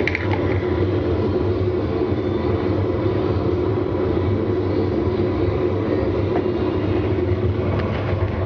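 Steady running noise of fossil-preparation machinery, a constant low hum with a few steady tones above it, and a small click right at the start.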